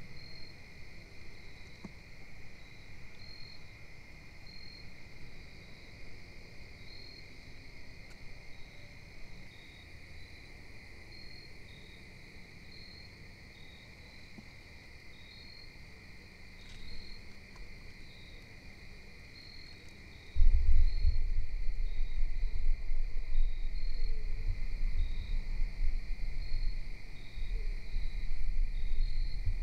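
A steady chorus of insects, with short high chirps repeating about once a second. About two-thirds of the way in, a loud low rumble on the microphone starts suddenly and becomes the loudest sound.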